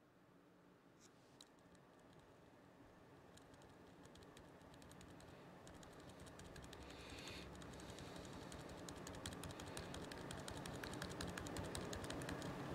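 Clicking and tapping on a laptop keyboard, faint at first and growing steadily louder and busier, over a faint low hum.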